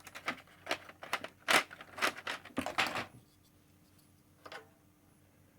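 Plastic keycaps being handled and tried on: a quick run of clicks and rustling for about three seconds, then a single click near the end.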